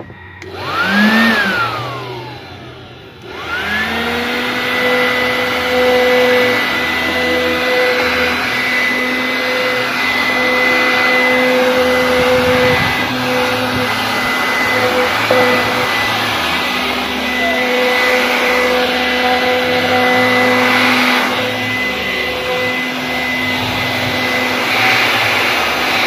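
Homemade vacuum cleaner driven by a 775 DC motor and fan inside PVC pipe, switched on with a click: it whines up and winds down within about three seconds, then starts again and runs steadily with a high whine over rushing air.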